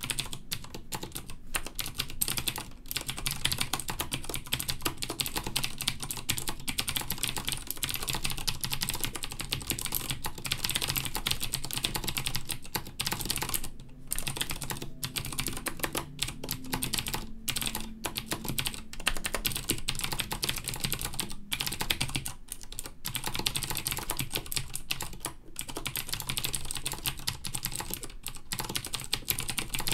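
Continuous fast typing on a mechanical keyboard with clicky Cherry MX Blue switches: a dense run of sharp clicks, broken by a few short pauses.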